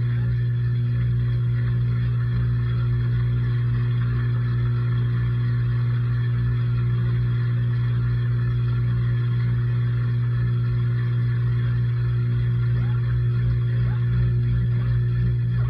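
LG washing machine running, recorded from inside the machine: a steady low hum with a fainter hiss above it, unchanging throughout.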